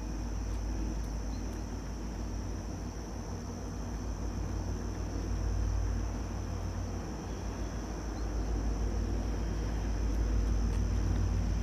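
Low rumble of an approaching VIA Rail passenger train, still far off, slowly growing louder.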